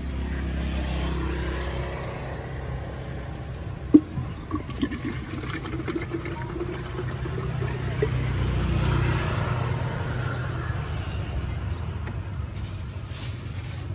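Coconut water draining from a freshly opened green coconut, turned upside down, into a plastic cup. There is a sharp knock about four seconds in, a few light clicks after it, and a low steady rumble underneath.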